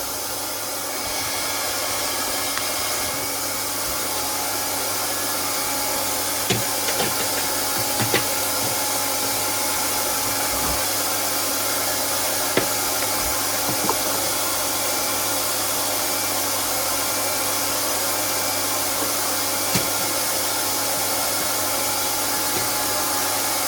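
Hot-air plastic welding gun running steadily, its fan hum and rushing hot air unbroken, with a few faint clicks along the way.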